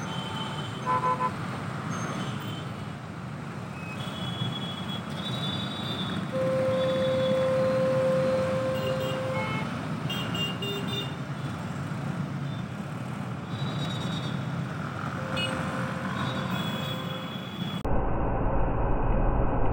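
Highway road noise from a moving vehicle, with vehicle horns sounding over it: a short toot about a second in, a long steady horn blast of about three seconds a few seconds later, and several brief higher-pitched horn beeps. Near the end the sound changes abruptly to a duller, deeper road rumble.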